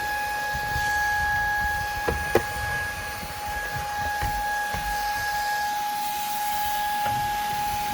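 Shark IZ251UKT cordless vacuum running steadily with a high motor whine over the rush of air. Two sharp knocks come a little over two seconds in.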